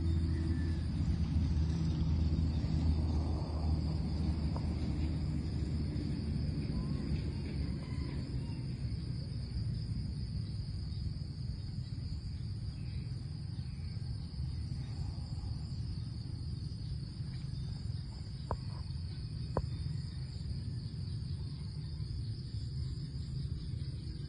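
Steady high-pitched drone of insects in the forest over a low, steady rumble, with two light clicks about a second apart near three-quarters of the way through.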